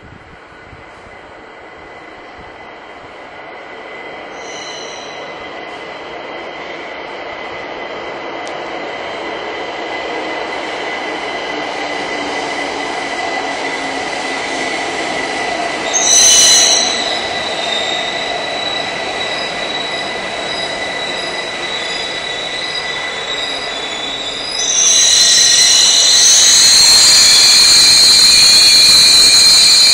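Metro train pulling into an underground station, its running noise building steadily with a steady high whine. There is a brief high screech about halfway through, then loud high wheel squealing over the last five seconds.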